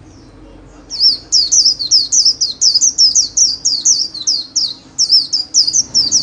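White-eye (vành khuyên) singing its fast 'líu' song: a loud run of quick, high slurred notes, about four a second, starting about a second in, with a short break near the end.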